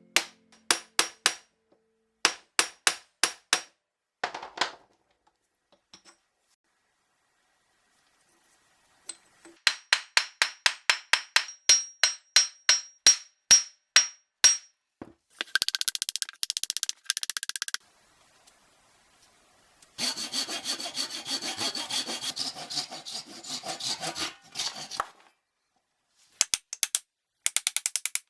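Hand-tool work on an old rusty hammer: repeated rasping, sawing-like strokes, about three a second, in several bursts with pauses between them. Two longer stretches of denser scraping come partway through.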